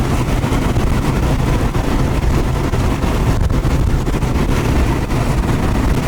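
Steady road noise and engine rumble heard from inside a moving car.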